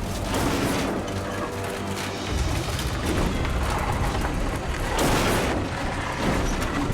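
Dramatic background music, swelling several times with deep booming hits over a low rumble.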